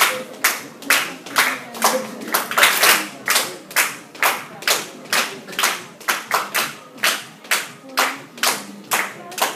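Hands clapping in a steady, even rhythm, about two to three sharp claps a second, keeping time for a folk dance.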